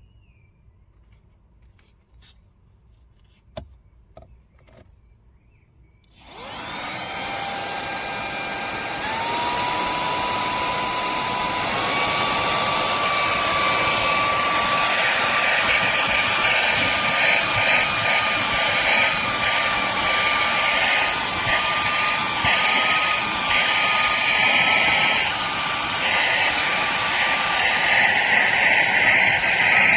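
A few clicks, then a cordless handheld vacuum cleaner's motor starts up and runs with a steady rush of air and a high whine. The whine steps up in pitch twice, a few seconds apart, as the motor goes up to a higher speed.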